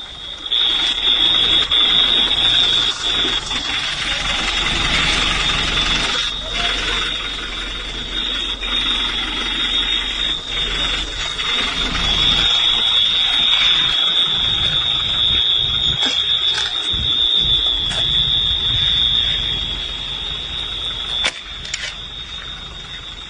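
An alarm sounds one continuous, steady, high-pitched tone over a background of noise, with a few short knocks near the end.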